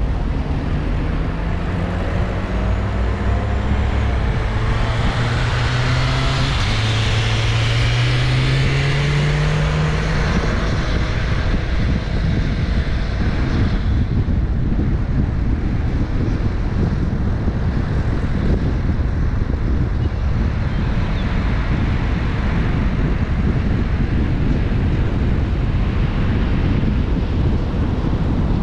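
Car driving through city streets: the engine tone rises twice over the first ten seconds as the car accelerates through a gear change. After that, a steady rumble of tyre, road and wind noise.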